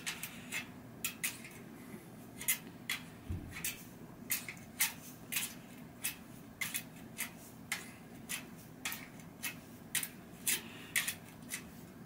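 Steel spokes of a newly laced 36-spoke, three-cross front wheel being pressed down where they cross, giving sharp metallic clicks about twice a second.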